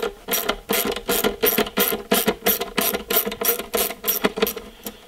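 Hand ratchet wrench with a 7/32-inch socket clicking steadily, about five clicks a second, as a bolt on a headlight housing is turned out.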